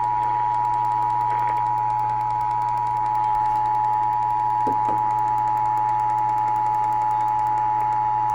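Emergency Alert System two-tone attention signal (853 and 960 Hz played together), a steady, unbroken dual tone heard over broadcast radio that cuts off sharply about eight seconds in. It announces an EAS activation, here a National Weather Service severe thunderstorm warning.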